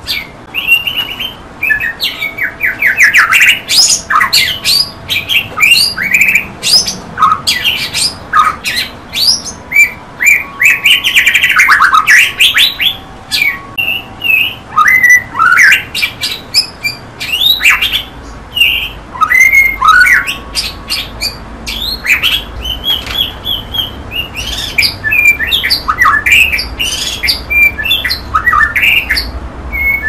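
White-rumped shama singing a loud, varied song: quick sharp notes mixed with whistled phrases that sweep up and down in pitch, with hardly a pause.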